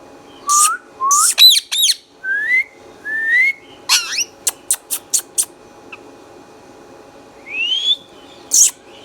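Indian ringneck parakeet whistling and calling: a string of short rising whistles and shrill high squawks, then a quick run of sharp chirps about four seconds in. After a pause, one more rising whistle and a loud squawk near the end.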